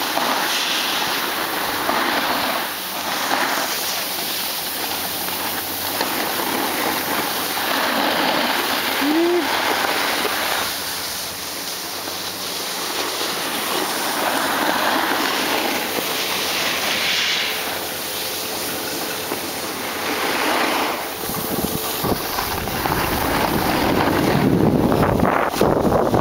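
Snowboard edges scraping and hissing over packed snow, swelling and fading every few seconds with the turns, mixed with wind on the microphone that buffets more heavily near the end.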